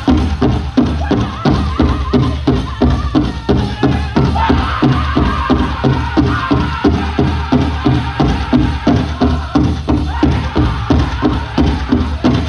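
Powwow drum group playing a chicken dance song: several drummers strike a big drum in unison in a fast, steady beat, with high-pitched group singing over it.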